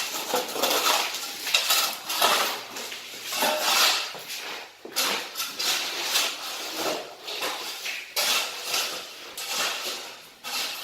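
Irregular metallic clanking and scraping of renovation work, with tools striking and shifting debris while a plumbing trench is dug. The strokes come densely and unevenly, with no steady beat.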